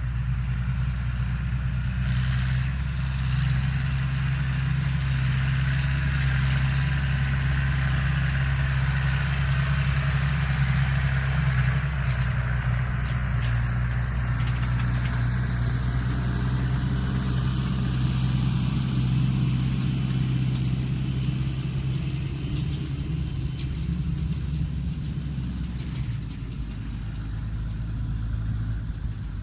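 LS Plus tractor's diesel engine running steadily under load while pulling a 14x28 disc harrow, with a deep drone. The sound eases slightly near the end.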